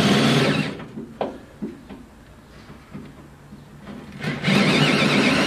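Cordless drill with a spot weld drill bit running under load, cutting through spot welds in the steel floor. It stops under a second in, a few light knocks follow, and it starts up again near the end.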